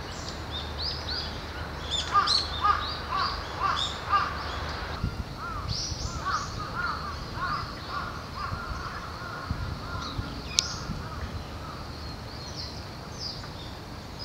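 Birds calling over and over in trees: quick runs of short, arched calls, thick for the first five seconds and sparser after, over a low steady background rumble. A single sharp click sounds about ten seconds in.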